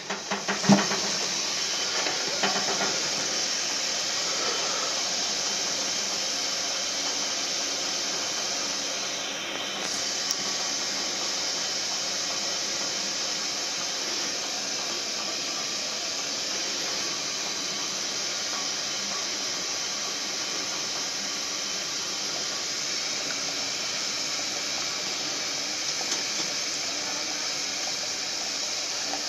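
Antique Japanese kettle heating on a gas stove, giving off a steady hiss of steam as the water nears the boil. A single clack of its lid comes about a second in.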